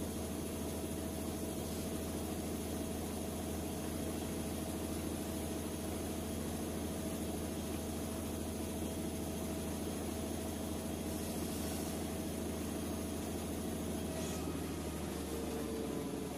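Steady low mechanical hum with a few faint steady tones over it, like a room appliance running; a faint click near the end.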